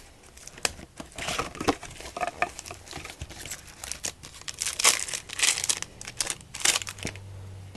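Plastic card-pack wrapper being torn open and crinkled by hand, in irregular rustles and crackles, as a pack of baseball cards is opened.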